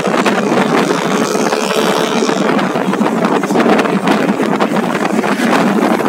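Loud, steady wind noise buffeting the microphone of a moving motorcycle, with the engine and road noise running underneath.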